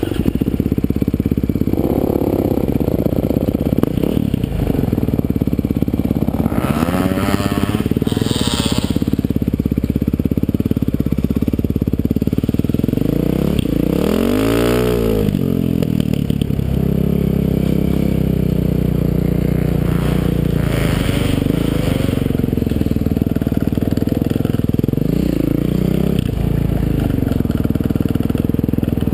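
Dirt bike engine running under way, heard from the rider's helmet. It revs up and falls back about halfway through, and briefly again near the end.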